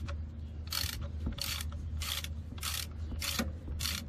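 A 1/2-inch ratchet with an oil filter socket clicks in short rasps on each back-swing, about seven strokes evenly spaced roughly every half to two-thirds of a second, as an over-tightened oil filter is unscrewed and comes loose.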